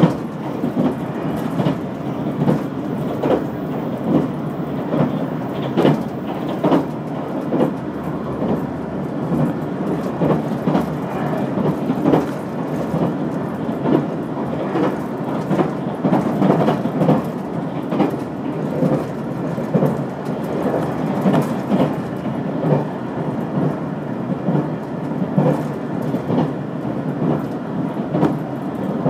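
Limited express train running at speed, heard from inside the passenger car: a steady rumble of wheels on rail with frequent irregular knocks and clatters.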